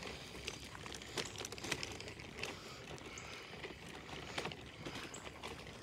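Pet stroller being pushed along a concrete sidewalk, its wheels and frame giving off scattered, irregular clicks and light rattles over a low rolling rumble.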